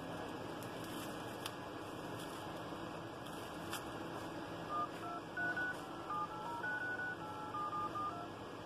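Touch-tone keypad beeps from a Vivo Y19 smartphone's dialer as digits are tapped in quickly, one short two-note beep per key, starting about halfway through. A few faint clicks come before the beeps, over a steady hiss.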